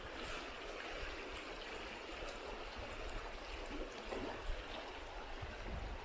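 River water flowing in a steady rush, with a short knock about four and a half seconds in.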